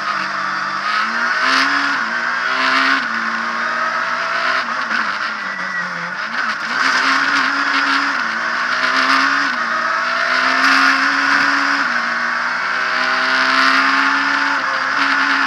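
Abarth Punto S2000 rally car's naturally aspirated two-litre four-cylinder engine heard from inside the cabin at full stage pace, revving up through the gears with a sudden drop in pitch at each shift and easing off briefly before pulling hard again. Loud road and wind rush runs underneath.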